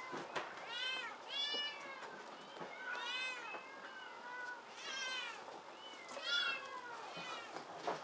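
Kittens meowing over and over, about six short high-pitched meows that rise and fall, with a few light clicks and rattles from the wire pen they are climbing.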